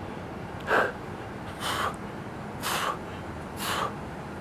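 A man's sharp, forceful exhalations through mouth or nose, four of them about a second apart, one with each crunch during an ab workout.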